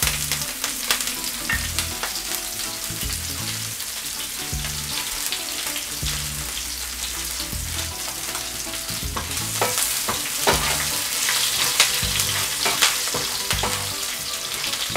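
Sliced green chillies sizzling and crackling in hot oil with mustard seeds, cumin, fennel and curry leaves in a frying pan, stirred with a wooden spatula. A steady hiss runs under quick sharp pops, busier in the second half.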